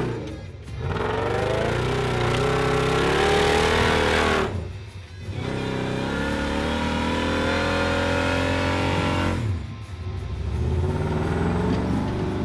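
Off-road Jeep engine revving hard in three long pulls, its pitch climbing and falling, with short drops between.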